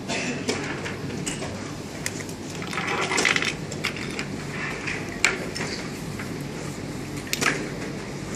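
Chess pieces being set down on the board and a digital chess clock being tapped during a fast blitz game: a string of sharp clicks and clacks, the sharpest about five seconds in, over steady room noise.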